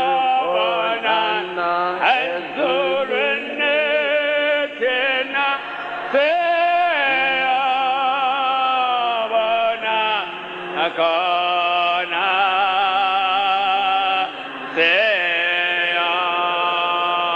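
A voice singing a slow melody in long drawn-out phrases with strong vibrato, over a steady low held tone.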